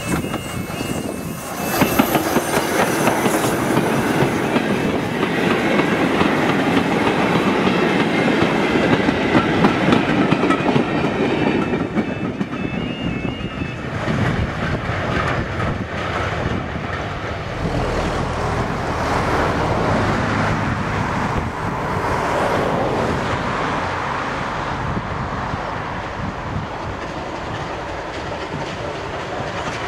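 Goods train hauled by a rebuilt Bulleid light Pacific steam locomotive rolling past, its wagon wheels clattering over the rail joints. A two-tone alarm beeps faintly at the start and again around twelve seconds in.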